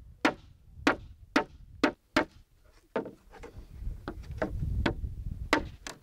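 An axe chopping into a wooden plank: about ten sharp strikes at an uneven pace, cutting out the notch for the bees' entrance in a transitional beehive board.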